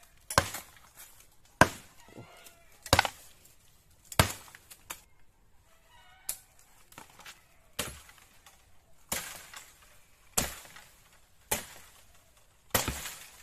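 A heavy blade chopping into bamboo stalks: about ten sharp strikes, one roughly every 1.3 seconds.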